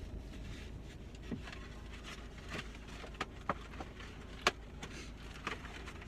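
Car engine idling steadily, heard from inside the cabin, with about half a dozen short sharp clicks and crackles from handling and eating food, the sharpest about four and a half seconds in.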